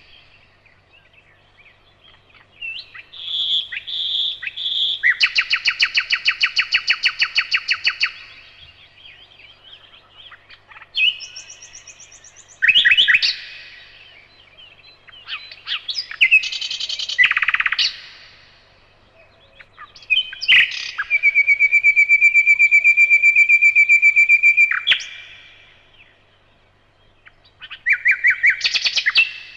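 A nightingale singing in separate phrases with short pauses between them: fast runs of rapidly repeated notes, and one long phrase of very fast pulses held on a single pitch for about four seconds.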